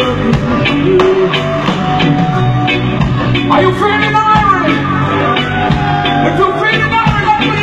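Live band music at a concert: steady bass and drums with a regular beat about twice a second, and a voice singing a gliding melody, loudest around the middle.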